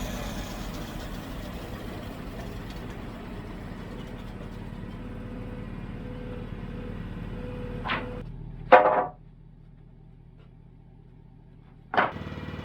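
Norwood HD36 portable bandsaw mill's engine running steadily. About nine seconds in, a short loud noise, after which the sound drops to a quiet low hum; another short, sharp noise comes near the end.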